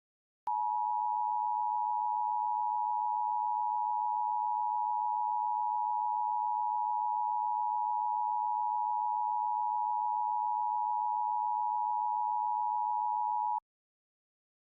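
Emergency Alert System attention signal: a steady, unwavering alarm tone near 900 Hz that starts about half a second in, holds for about 13 seconds and cuts off suddenly. It marks the start of a new alert message.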